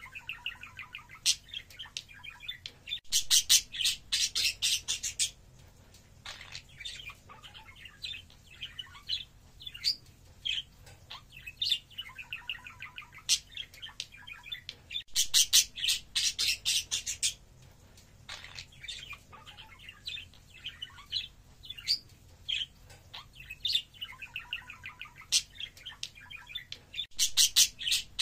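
Budgerigars warbling and chirping continuously. Three times there is a loud burst of rapid, scratchy chatter: about three seconds in, around the middle, and near the end.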